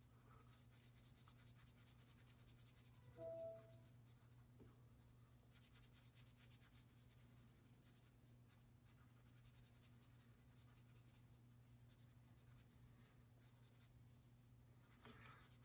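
Faint, scratchy strokes of a crayon rubbed lightly back and forth over paper, filling in an area of color. A brief faint pitched squeak comes about three seconds in.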